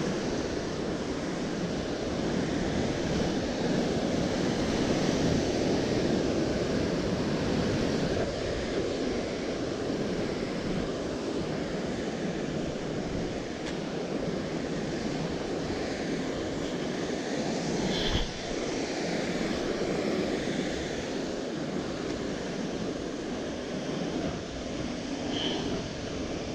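Steady wash of ocean surf breaking on rocks below, with wind on the microphone; a single short knock about eighteen seconds in.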